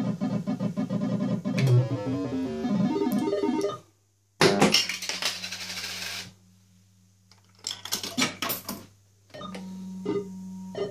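A vintage fruit machine plays its beeping electronic tune for about four seconds. After a brief cut-out comes a loud rattling clatter over a low hum, then a run of sharp clicks. Near the end a steady electric hum sounds as the reels spin.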